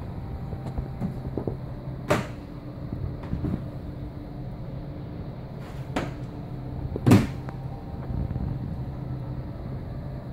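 Steady low hum of running aquarium equipment, with a few sharp knocks about 2, 6 and 7 seconds in; the one near 7 seconds is the loudest.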